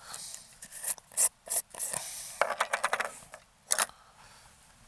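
Several sharp clicks among scraping and rubbing of small hard objects handled by hand, with the loudest clicks just after a second in and near the end, as slugs and the airgun's magazine are handled.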